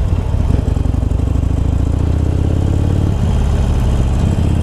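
Harley-Davidson Sportster Iron's air-cooled V-twin, bored out to 1200 cc and fitted with Screamin' Eagle slip-on mufflers, running under way as the bike rides on. The engine note shifts about three seconds in.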